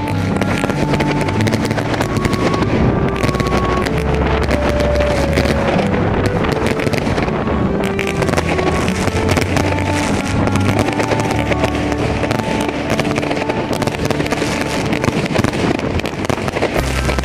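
Fountain fireworks spraying sparks with a steady hiss and crackle, over a small engine running and background music with a melody.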